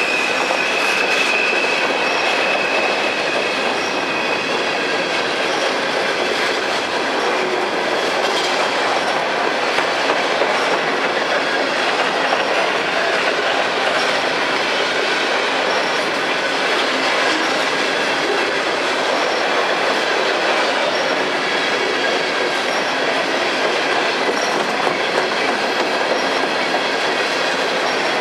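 Long freight train of empty coal hoppers rolling slowly past, steel wheels on rail making a steady rumble and clatter. A high wheel squeal sounds at the start and fades out after about four seconds.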